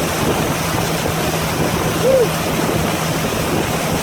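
Steady rush of water and wind noise with a low, even engine hum underneath, from a vehicle moving through deep floodwater.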